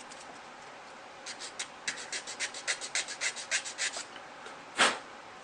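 Steel hobby file rasping across a nub on a hard ABS plastic model-kit part, in a quick run of short, even strokes about six a second, then one louder, longer stroke near the end.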